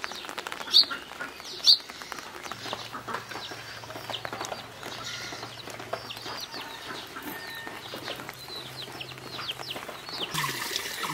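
Domestic chicks and chickens peeping and clucking: many short falling chirps, with a few sharp, louder calls in the first two seconds. A rushing water sound sets in near the end.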